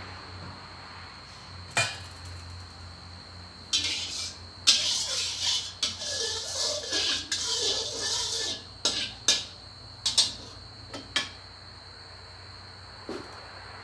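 Metal spatula scraping and clattering around a stainless-steel wok with a little oil in it for about five seconds. Then come a few separate sharp metallic knocks. There is a single click near the start.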